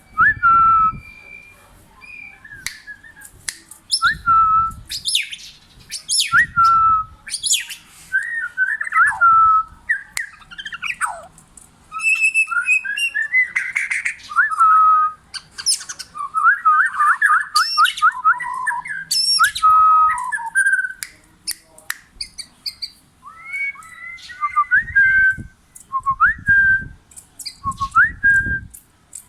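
Tame oriental magpie-robin singing, a string of short, varied whistled phrases with quick rising and falling notes, broken by a few low thuds.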